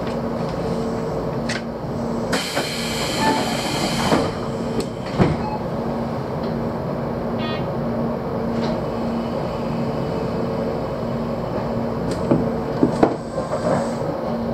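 Tobu 6050-series electric train standing at a platform, heard from its cab: a steady hum with a low tone that pulses on and off. A hiss of air comes about two seconds in and lasts about two seconds, and a few sharp clunks sound near the end.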